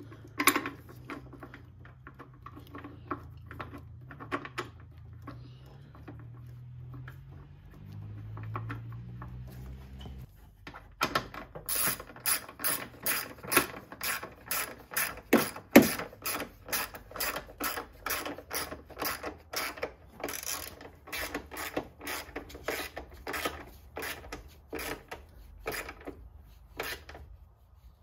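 Ratchet wrench snugging down the battery hold-down clamp bolt. A few scattered clicks and clanks of tool handling come first; then, about a third of the way in, a steady run of ratchet clicks, two or three a second, which stops just before the end.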